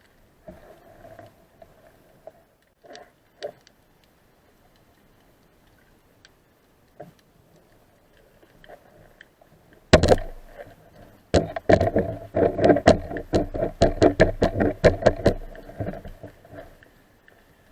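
A loud sharp knock about ten seconds in, then a rapid run of sharp knocks and clicks, several a second, for about five seconds, heard through an underwater recording.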